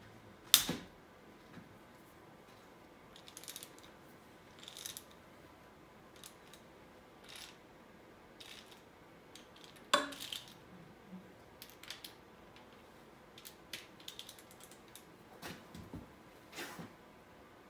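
Ratchet wrench and socket working bolts on a cast-iron 1958 Lincoln 430 engine block: two sharp metallic cracks, about half a second in and near ten seconds, as bolts break loose, with short runs of ratchet clicking between and after them.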